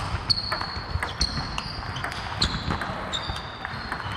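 Table tennis rally: the ball clicking sharply and irregularly off the bats and the table, with more ball clicks from rallies at other tables in the hall.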